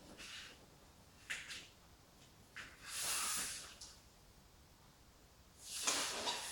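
Large sheet of drawing paper rustling in a few short bursts as it is handled and lifted off a flip-chart board. The loudest rustle comes about three seconds in.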